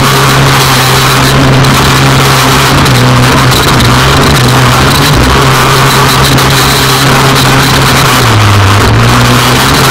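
Off-road race buggy's engine running hard at a near-steady speed, loud and close to the onboard camera. Its note dips briefly about eight and a half seconds in as the buggy crests a rise, then picks back up.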